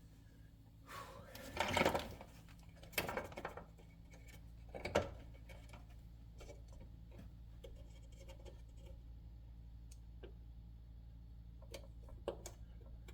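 Hard plastic parts of a range control panel being handled and fitted, with three clattering knocks in the first five seconds, then a few small clicks, over a steady low hum.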